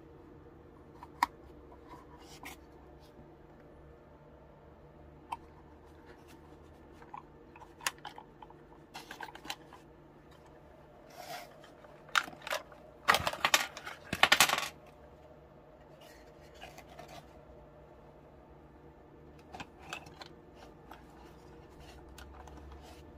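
Scattered small plastic clicks and scrapes as the body shell of a Märklin/Trix TGV model power car is pried loose with plastic pry sticks and lifted off its chassis. A denser burst of clicking and clatter comes a little past halfway.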